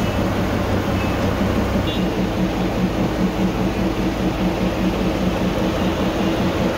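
NDM6 narrow-gauge diesel locomotive's engine idling at a standstill, a steady low hum with a regular fast throb.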